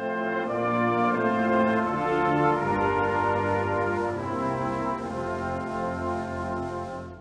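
Brass band playing the introduction to a hymn tune in slow, sustained chords, which die away near the end.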